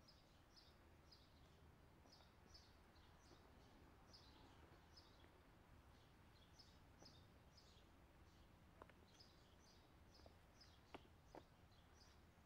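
Faint songbird calling in the woods: quick high chirps that fall in pitch, repeated about twice a second. In the second half a few light clicks as loose stones are picked up and knock together.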